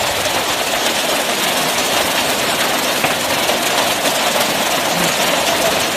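Steady roar of a heavy hailstorm, with hail and rain falling hard.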